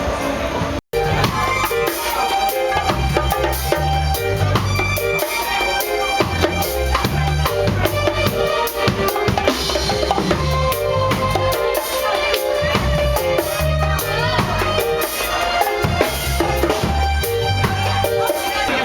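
Music with a drum kit and bass keeping a steady beat. It starts after a brief drop-out about a second in.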